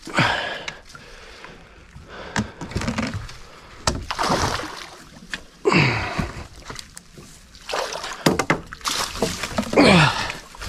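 A grass carp thrashing in a landing net, water splashing and sloshing in several bursts as the net is lifted out of the water onto the bank.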